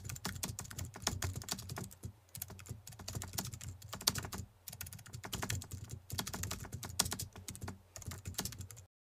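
Whiteboard marker writing on a whiteboard: quick runs of short scratchy, tapping strokes, with brief pauses between words.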